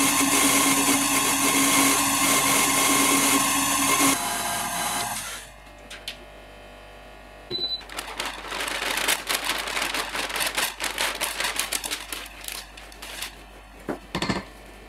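KitchenAid stand mixer whisking egg batter at speed, a steady whir that winds down and stops about four to five seconds in. After a short pause, a rubber spatula scrapes and folds batter against a stainless steel bowl in quick irregular strokes.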